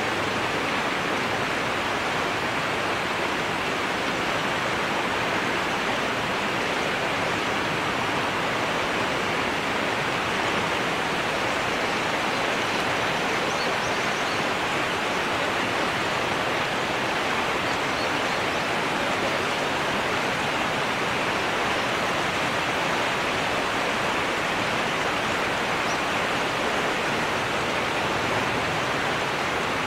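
River water rushing steadily over rapids: a dense, even hiss that holds at one level with no breaks.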